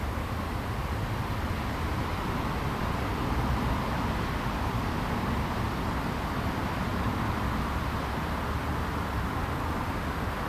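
Steady outdoor background noise with a low rumble throughout and no distinct events.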